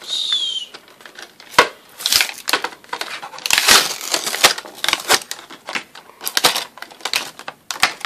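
Clear plastic blister packaging crinkling and crackling as it is pried off its cardboard backing, with irregular clicks and rustles throughout. A short squeaky scrape right at the start.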